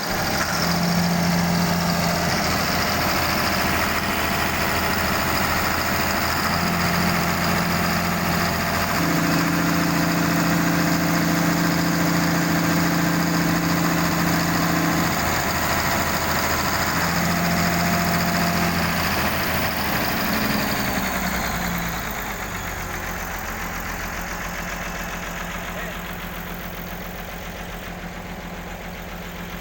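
Hitachi excavator's diesel engine running steadily, with a humming tone that comes and goes several times; about two-thirds of the way through the engine speed falls and it settles to a quieter, lower idle.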